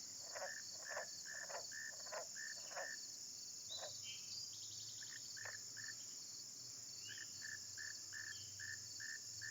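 Faint evening chorus of crickets and other insects: a steady high-pitched trill, with a lower short chirp repeating two or three times a second.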